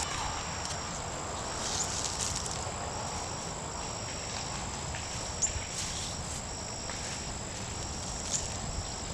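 Insects singing outdoors: one steady high-pitched trill, with a second insect calling in short repeated phrases under a second long. A few brief rustles break in now and then.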